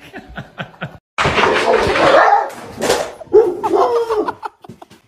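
A few light taps, then after a brief gap a dog's loud, rough vocalising with a wavering pitch for about three seconds.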